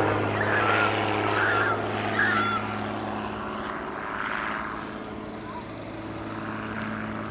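Aviat Pitts S-2C aerobatic biplane's engine droning steadily and fading, with four short warbling calls in the first two and a half seconds.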